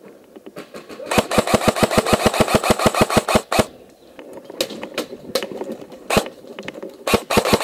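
Airsoft electric rifle (AEG) firing a rapid full-auto burst of about two and a half seconds, its gearbox cycling in a fast even rattle, then a few single shots, then another rapid burst near the end.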